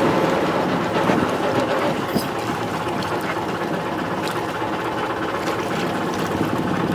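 Water splashing and sloshing around scuba divers in the sea at a dive boat's side, over a steady rumbling background.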